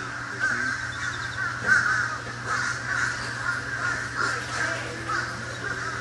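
Many birds calling at once: harsh, caw-like notes that overlap without a break, over a low steady hum.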